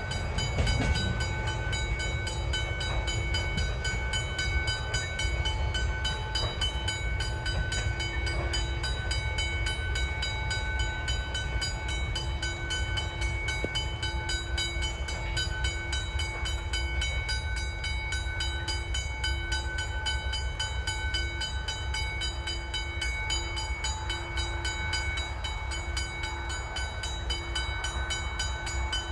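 Railway level crossing warning bells ringing continuously with a rapid, even repeat of ringing tones, over a steady low rumble as the grain train draws away.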